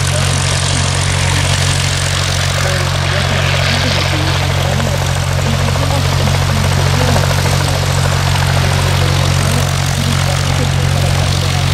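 Light propeller aircraft's piston engine running steadily, a constant drone.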